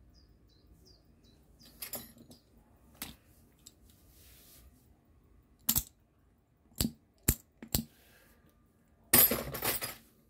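About six sharp clicks, unevenly spaced, then a louder burst of rattling or clattering lasting about a second near the end.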